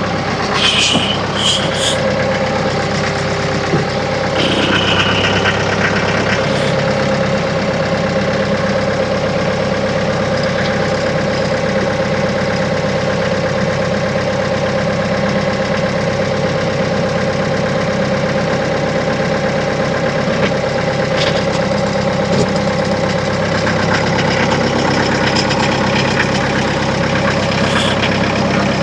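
Tractor engine running at a steady speed, with a few short high squeaks in the first several seconds.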